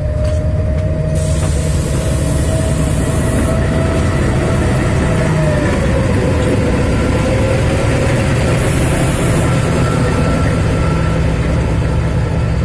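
ZDM narrow-gauge diesel locomotives running past close by, their engines giving a steady low rumble with a wavering whine. Two short bursts of hiss come, one near the start and one about two-thirds of the way through.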